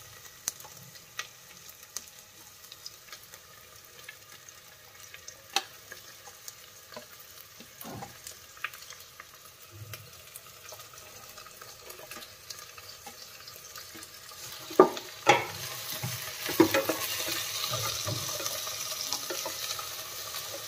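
A spoon scrapes chopped vegetables off a plate into a hot pot, with scattered light clicks and taps. About fifteen seconds in come a few knocks of the spoon on the pot, and then a frying sizzle grows louder as the vegetables cook in the hot oil.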